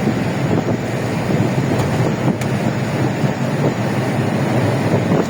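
Steady road noise of a vehicle cruising on an expressway: tyre and engine noise with no breaks or changes.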